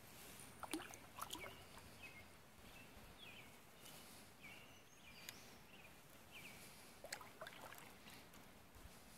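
Quiet canoe paddling: a wooden canoe paddle splashing and dripping softly a few times, about a second in and again around seven seconds in, with small birds chirping in the background.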